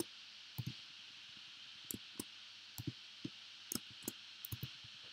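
Computer keyboard keys and mouse clicking sporadically, a few faint irregular clicks a second, over a steady hiss.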